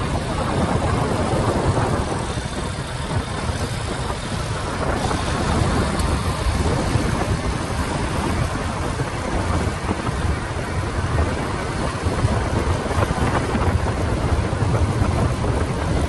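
Motorcycle riding along the road, its engine running under a steady rush of wind over the microphone.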